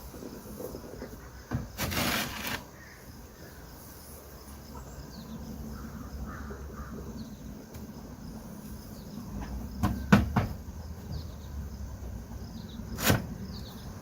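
Setting up a chicken tractor: a short scraping rustle about two seconds in, a quick cluster of sharp knocks around ten seconds in and one more knock about three seconds later, over faint bird chirps.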